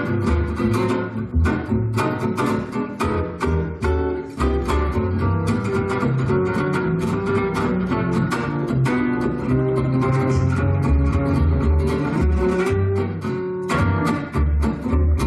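Solo Selmer-Maccaferri-style gypsy jazz guitar played fast, with dense, sharply attacked notes over low bass notes.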